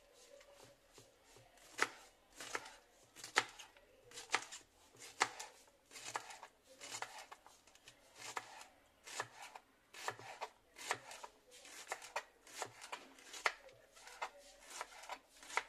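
Kitchen knife chopping taro stalks on a wooden cutting board: a run of short, crisp cuts, one or two a second, starting about two seconds in.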